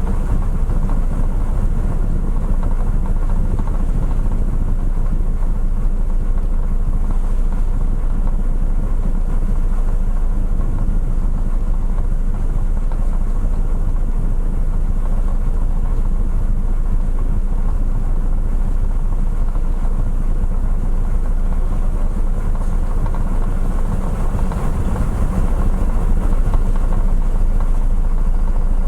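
Steady low rumble aboard a car ferry under way: the ship's engines droning, mixed with wind and water noise.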